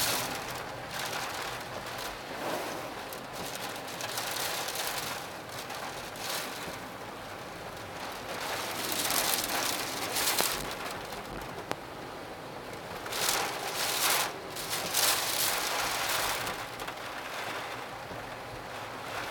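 Typhoon wind and rain: a continuous rushing hiss that swells in gusts several times, strongest about nine, thirteen and fifteen seconds in.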